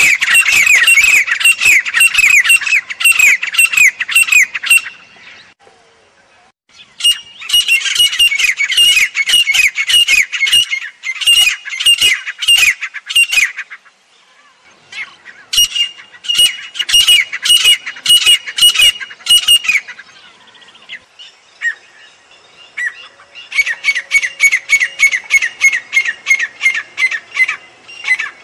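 Grey francolin calling: fast runs of repeated shrill notes, about three a second, in four bouts with short pauses between them.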